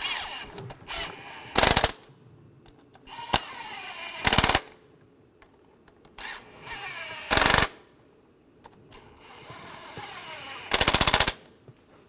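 Cordless impact tool driving four bracket bolts down one after another. Each time it spins briefly with a high whine, then breaks into a loud, rapid hammering for about half a second as the bolt seats.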